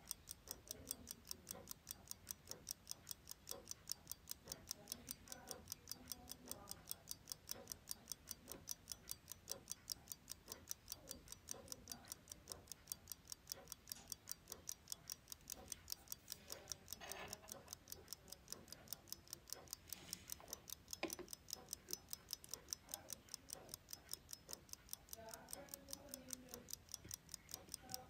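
Uncased antique fusee pocket watch movement running, its escapement ticking steadily at about five ticks a second. A few light knocks sound over it as the movement is handled.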